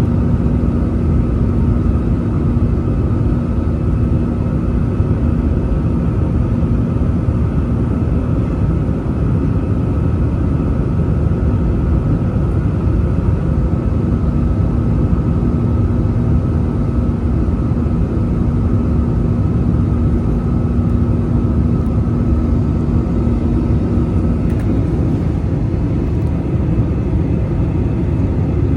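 Airbus A320-200 jet engines and airflow heard from inside the passenger cabin: a loud, steady rumble with a steady hum whose pitch changes about 25 seconds in.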